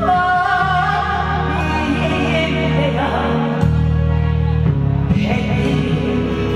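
A woman singing a gakseori (pumba) song over amplified backing music with a steady low bass line; she holds a long, wavering note near the start, and her voice drops out for a while before coming back near the end.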